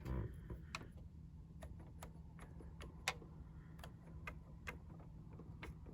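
Light, irregular clicks from the keys and mechanism of an opened Paolo Soprani chromatic accordion being pressed and handled, roughly one or two a second, with one sharper click about three seconds in. A soft knock opens it, and a faint low hum runs underneath.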